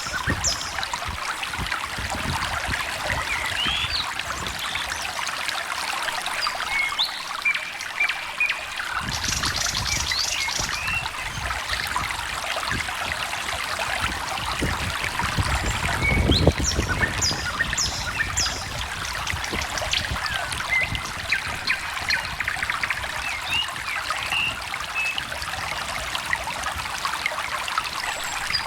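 Small stream trickling and splashing steadily, with songbirds chirping and trilling here and there over it. About halfway through there is one louder low surge in the water.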